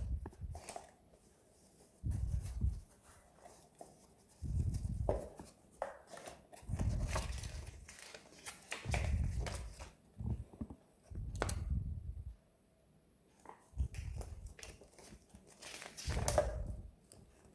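Irregular handling sounds: dull thumps and rustles, with a few sharp clicks in between.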